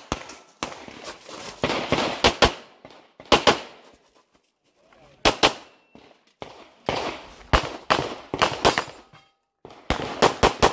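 Glock 34 9mm pistol fired in rapid strings of shots, many in quick pairs, each a sharp crack with a short echo trail. The strings are broken by short pauses, about three and a half seconds in and again near the end.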